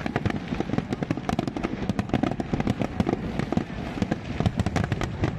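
Fireworks display: a dense, continuous run of sharp bangs and crackling pops, many each second, over a low rumble.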